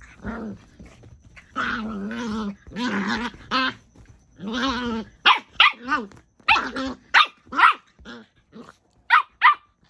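Two Miniature Pinschers growling and barking in a dominance scuffle: long growls for the first few seconds, then a run of about nine short, sharp barks and snarls in the second half.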